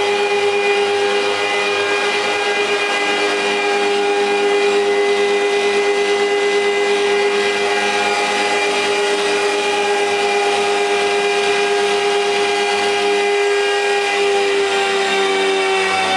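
Kupfermühle 70 four-sided planer running with no wood being fed: a steady machine hum and whine from its motors and cutter spindles, over a regular low pulsing. Its tones drop slightly near the end.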